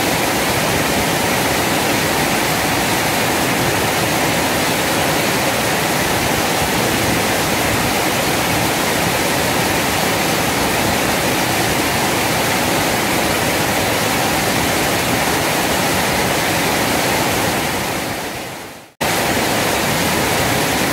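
Steady rushing of water pouring over a small weir into a fast river current. Near the end the sound fades out over about a second and a half, then comes back abruptly.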